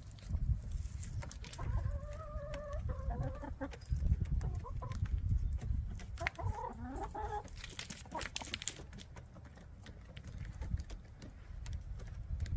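Backyard hens calling: two drawn-out, wavering calls, one about a second and a half in and another around six seconds, over steady low thudding and rustling.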